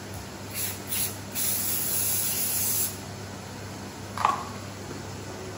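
Extra virgin olive oil aerosol spray can hissing in a few short bursts, then one longer spray of about a second and a half that stops about three seconds in. A single short knock follows about a second later.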